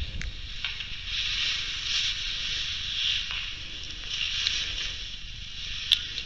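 Fabric rustling from a fleece coat sleeve as hands handle a small digital voice recorder, coming in soft swells of hiss, with a sharp click near the end.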